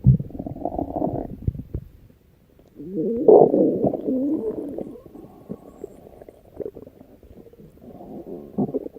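Stomach growling: gurgling rumbles in two bouts, the second starting about three seconds in and the stronger of the two, then fainter gurgles trailing on.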